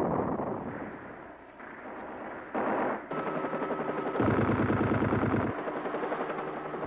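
The rumble of an explosion dies away. Then comes automatic machine-gun fire: a short burst near three seconds in, then a rapid, steady rattle, loudest from about four to five and a half seconds, over a steady engine whine.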